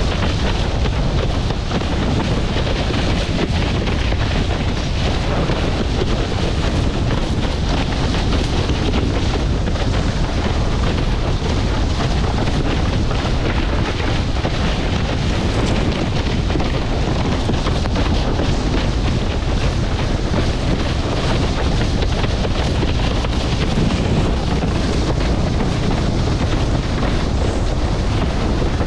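Steady, loud wind rumble buffeting the microphone of a camera mounted on a windsurf rig sailing at speed, mixed with the rush of water past the board.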